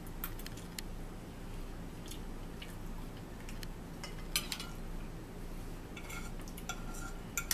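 Forks clicking and scraping against dinner plates while eating, in scattered light taps, the loudest about four and a half seconds in. A steady low hum runs underneath.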